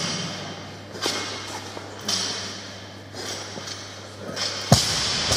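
A barbell loaded with bumper plates is dropped onto the gym floor near the end, landing with a single loud thud. Before that come soft rushing sounds about once a second.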